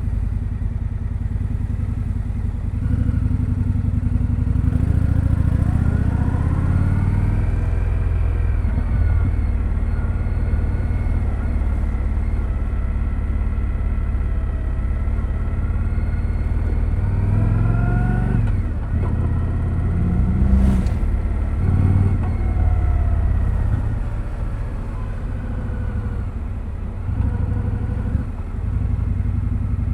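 2025 Indian Scout Sixty Bobber's V-twin engine through its stock exhaust, under way: the revs rise twice as the bike accelerates and fall away as it slows, with a sharp knock about two-thirds of the way through.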